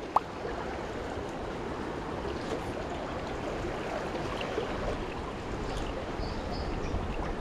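Steady rushing of a high, fast-flowing river, with one brief sharp click just after the start.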